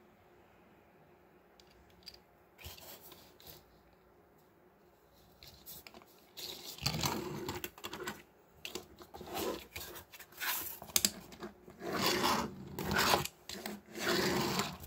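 Cardboard package backing card rustling and scraping as it is handled and pushed over a desk mat, in a string of irregular bursts starting about six seconds in. A few faint small clicks come before it.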